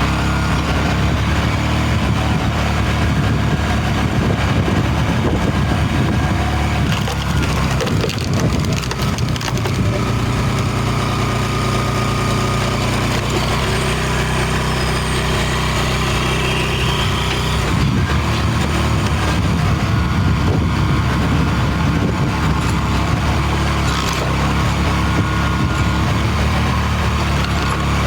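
The engine of a firewood-processing machine running steadily, with wood being cracked and crushed as logs are split.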